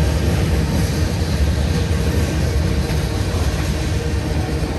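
Freight train cars rolling past a grade crossing, covered hoppers and then an autorack: a steady, heavy rumble of steel wheels on the rails.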